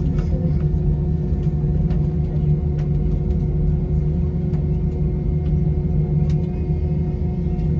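Airbus A320 jet engines at idle heard inside the cabin while taxiing: a steady low rumble with a constant hum, and a few faint clicks and rattles.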